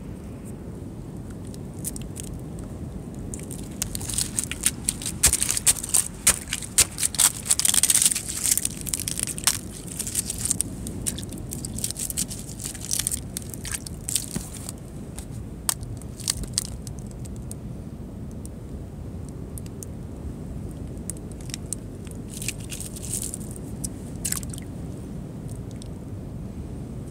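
Water splashing and bubbling in a shallow rocky tide pool: clusters of sharp crackling clicks, densest in the first half, over a steady low rumble.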